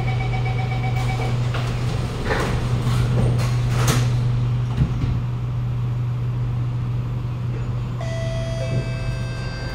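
Door-closing chime of a Kawasaki Nippon Sharyo C751B metro train, a rapid run of beeps lasting about a second, followed by the sliding doors shutting with a few knocks between two and four seconds in, over the car's steady hum. A steady whine from the train's drive comes in about eight seconds in.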